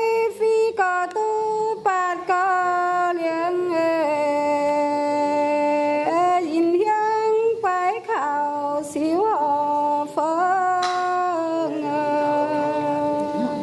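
A woman singing a Dao Thanh Phán folk love song (hát Dao duyên) solo. She holds long drawn-out notes with sliding, wavering ornaments between them.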